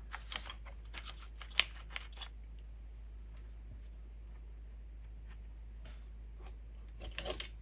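Light clicks and small handling noises from parts of a radio-control car's thin aluminium chassis being worked on during disassembly. There is a run of clicks in the first two seconds, the sharpest about a second and a half in, then a quiet stretch, and another quick cluster of clicks near the end.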